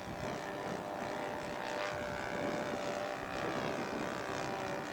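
Radio-controlled scale model airplane's engine droning steadily as the plane makes a flyby pass, growing a little louder about half a second in.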